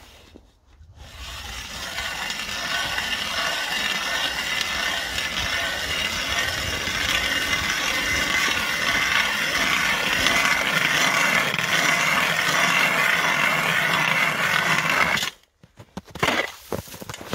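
Hand ice auger boring through ice: a steady scraping and grinding of the blades cutting. It builds up over the first few seconds and stops suddenly near the end, as the auger breaks through.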